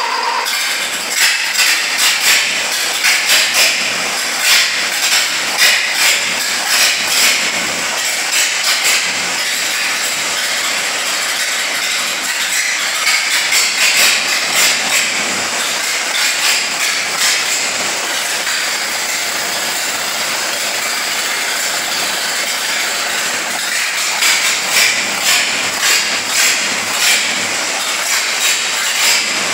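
1932 Ford AA truck's four-cylinder engine running on its first start, with spells of loud sharp ticking about two a second.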